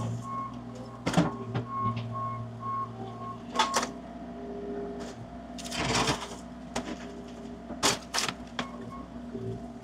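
A vehicle's reversing alarm beeping two or three times a second over a running engine, stopping about four seconds in. Sharp knocks and clatter come at intervals, with a brief rush of noise about six seconds in.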